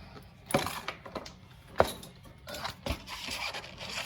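Tools and parts being handled: three sharp clacks about a second apart, the middle one loudest, then scraping and rustling.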